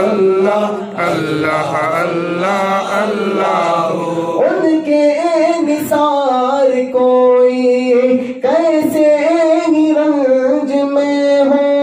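A man singing an Urdu naat solo into a microphone. He draws the melody out in long, wavering held notes, with a short breath break near the end.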